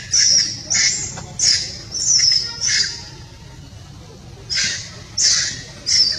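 Harsh, high-pitched animal squawks: about five short calls in quick succession, a pause of about a second and a half, then three more.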